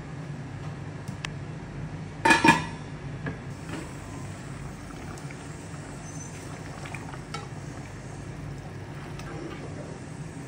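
Wooden spoon stirring fish curry in a metal pan, with a quick cluster of loud knocks against the pan about two seconds in and a few lighter clicks afterwards, over a steady low hum.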